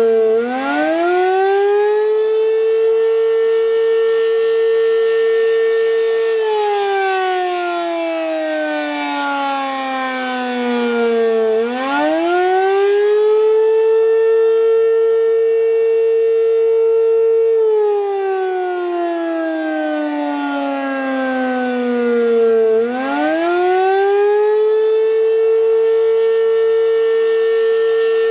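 American Signal RM-127 electromechanical warning siren sounding the Attack (wail) signal: its pitch climbs over about two seconds, holds high for about four, then slides down over about five, and the cycle starts again, about three times in all.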